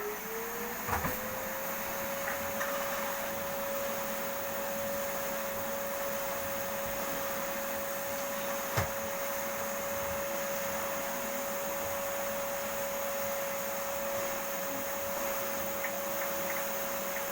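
Vacuum cleaner motor spinning up, its whine rising in pitch for about two seconds, then running steadily, with a couple of brief clicks.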